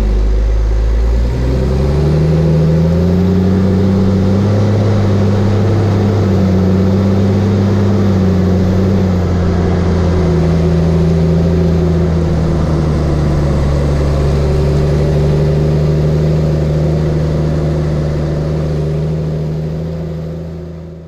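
Diesel engine of a CAT Challenger Terragator 3244 heard from inside the cab, revving up over the first couple of seconds and then running steadily as the machine drives across the field. The sound fades out near the end.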